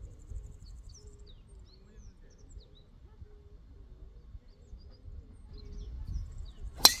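Faint bird chirps over a low rumble on the course, then near the end a single sharp crack, a golf club striking a ball.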